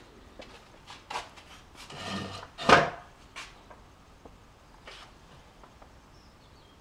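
Scattered light clicks and knocks with a short rustle, and one louder knock a little under three seconds in.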